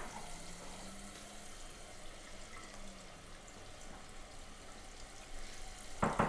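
Quiet kitchen room tone with a faint low hum, then near the end two sharp knocks on a door.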